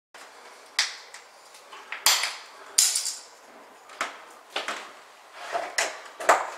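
Hard plastic knocks and clacks as a person kneels and shifts his weight across an acrylic shower pan: about seven sharp, irregularly spaced hits.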